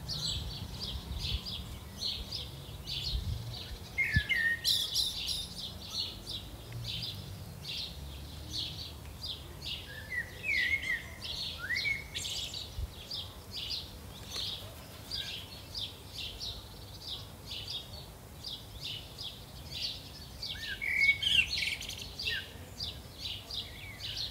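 Several garden birds singing: a dense run of short, high chirps throughout, with a few lower sliding whistled phrases in between.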